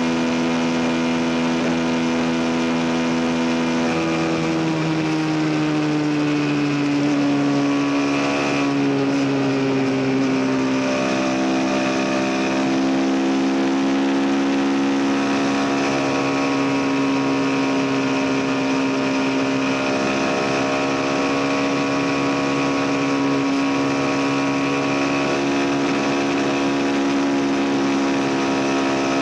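CFMoto NK 250 motorcycle's single-cylinder engine running under way, heard from the rider's position over wind rush. Its pitch rises a little from about four seconds in, then holds steady at cruise.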